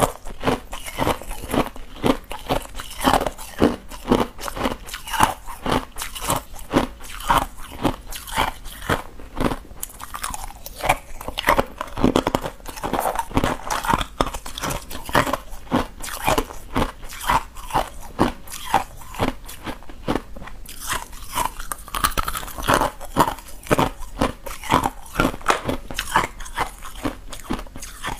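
A person chewing hard, clear ice chunks: a steady run of sharp, crisp crunches as the ice is bitten and ground between the teeth.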